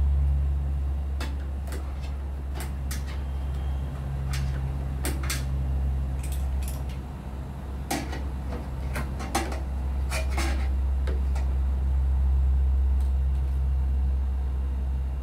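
Scattered light clicks and taps of a small hand tool working around the tub opening of a front-loading washing machine, over a steady low hum.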